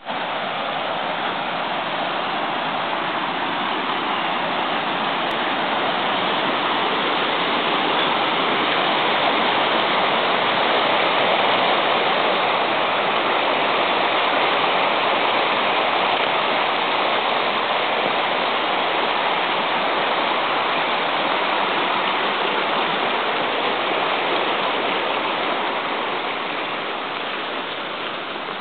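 Steady rush of a river's flowing water, swelling a little toward the middle and easing off near the end.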